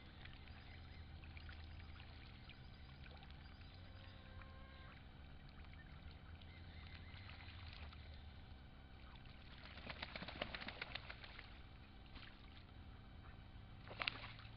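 Faint water sounds of ducks swimming and paddling in a shallow pond. A short run of splashes and patters comes about ten seconds in, and a single sharp click comes near the end.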